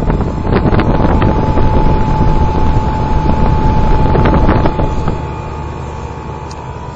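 Wind buffeting the microphone for about the first five seconds, then easing off. Under it, the 1964 Trane central air conditioner's outdoor unit runs with a steady hum.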